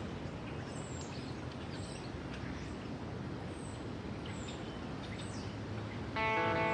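Steady outdoor background noise with several faint, short, high bird chirps spaced about a second apart. Guitar music comes in near the end.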